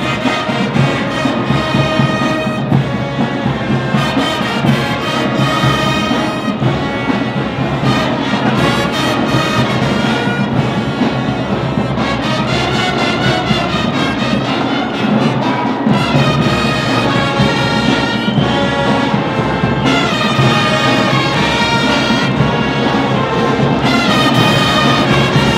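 HBCU marching band playing, with brass horns holding and moving through notes over a steady drum beat.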